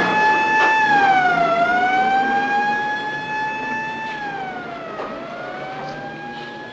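Ambulance siren wailing, its pitch dipping twice and sliding back up, growing fainter toward the end.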